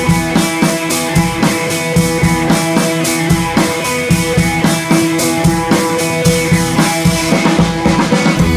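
Background music with a steady drum beat and guitar.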